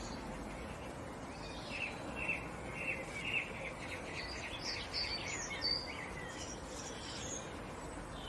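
A songbird singing in the background: a run of short, quick chirps, then higher, busier notes.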